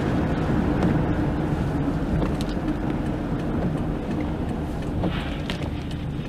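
Road and tyre noise of a car on a wet motorway, heard from inside the cabin, easing off a little as the car slows down. A few faint clicks come near the end.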